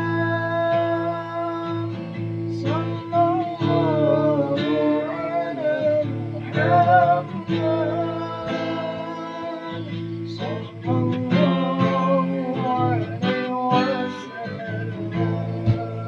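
Acoustic guitar strummed and plucked under a voice singing a drawn-out, wavering melody: a sholawat devotional song.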